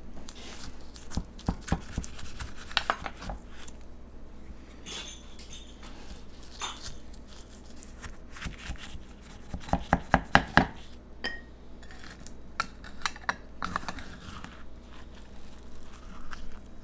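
Knife cutting through a baked flaky pie crust: irregular crackling of the crust and clicks of the metal blade against the ceramic pie dish, with a cluster of sharper knocks about ten seconds in, then a slice being lifted out.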